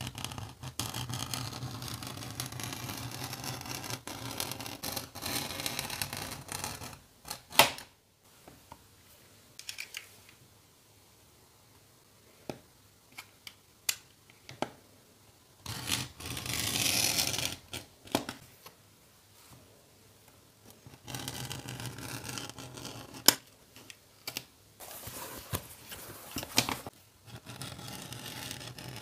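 A knife blade drawn along a steel ruler, slicing through leather in three long rasping strokes, with sharp clicks and taps of the ruler and blade between cuts; the loudest is a single click after the first stroke.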